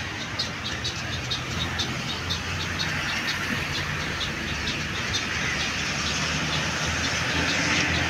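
Steady low rumble of road traffic, with a bird chirping in quick repeats, about three short high chirps a second, which die away about halfway through.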